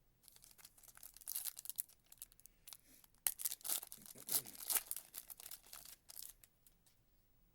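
Wrapper of a 2024 Panini Prizm football retail pack crinkling and tearing as it is ripped open by hand, a run of sharp rips and rustles that dies away near the end.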